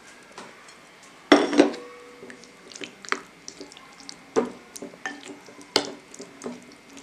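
A spoon stirring cut raw chicken into a thick yogurt marinade in a glass bowl, with several sharp clinks of the spoon against the glass. The loudest come about a second and a half in and again around four and a half and six seconds.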